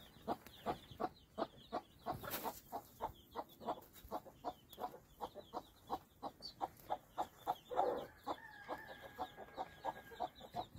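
Mother hen clucking steadily to her chicks, about three short clucks a second, over the chicks' high peeping. Near the end a longer, held call sounds for about two seconds.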